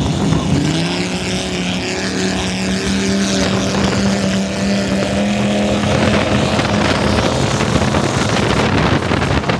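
Offshore racing powerboat engines running hard at speed, a steady drone that rises in pitch just under a second in. From about six seconds in, rushing wind and water noise on the microphone grows over the engines.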